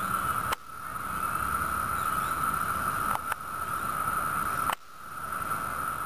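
Chorus of Brood II periodical cicadas (Magicicada), the males' mating song: a loud, steady, ringing drone. It drops away abruptly about half a second in and again near the end, each time swelling back up.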